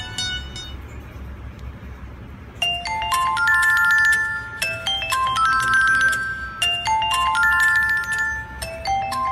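A ringtone playing through the Tecno Camon iSky 2's loudspeaker during a speaker test: a short chiming melody of bright notes that comes in about two and a half seconds in and repeats roughly every two seconds.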